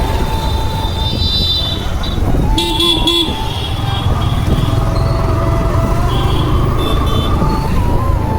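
City road traffic: several vehicle horns honking at different pitches over a steady low rumble of engines and wind, with three quick toots of one horn about three seconds in.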